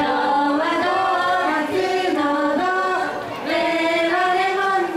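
Group of young women singing a J-pop idol song in unison, holding long level notes with short slides between them.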